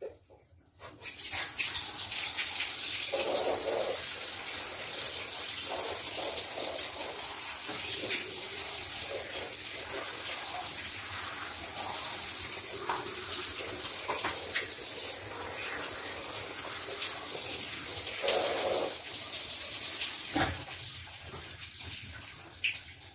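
Shower water running, a steady hiss that starts suddenly about a second in and falls away near the end.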